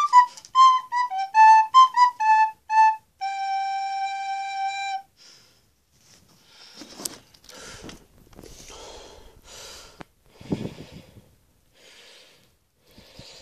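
A recorder plays a few quick notes and ends on one long held note that stops about five seconds in. After a short pause come irregular breathy puffs and rustling close to the microphone, about one a second.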